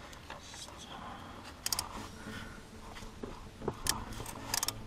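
Quiet handling of a manual gearbox drain plug and wrench as the plug is threaded back in, with a few short metallic clicks: one about a second and a half in and several near the end.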